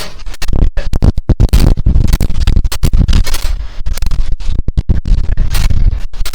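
Heavy wind buffeting on an action camera's microphone: a loud, gusty low rumble broken by many short dropouts.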